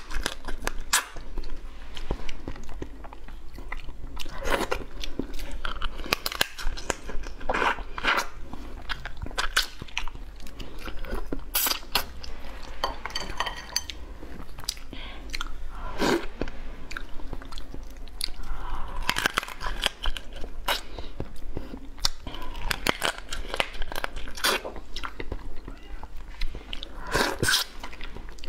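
Close-up chewing and crunching of a cooked crab, its shell and legs bitten and cracked apart, with repeated sharp cracks throughout.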